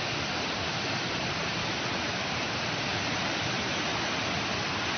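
Steady rushing water noise of a typhoon: heavy rain and floodwater, an unbroken even wash.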